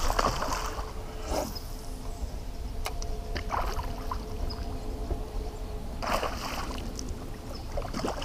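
Hooked largemouth bass splashing and thrashing at the water's surface beside a small boat, in several separate splashes.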